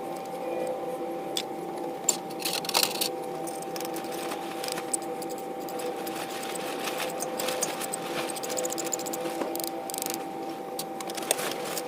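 Scattered small metallic clicks and clinks of hand tools working a bent lantern part, trying to straighten it, over a steady background hum.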